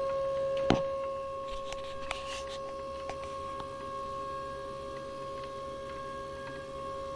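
CNC machine's X-axis drive running with a steady motor whine. A sharp click comes about a second in, followed by a few fainter clicks and a brief crunch: the crunching, rattling noise from the X ballscrew whose cause is not known.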